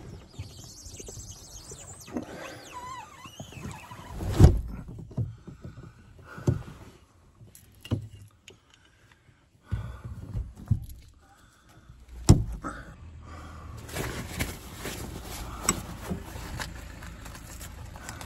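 Several sharp knocks and thumps, the loudest about four and twelve seconds in, with wind rumbling on the microphone over the second half.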